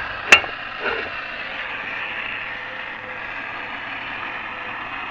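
Steady hiss of a gas torch flame heating the wheel-bearing housing to expand it for a press-fit bearing, with one sharp click about a third of a second in.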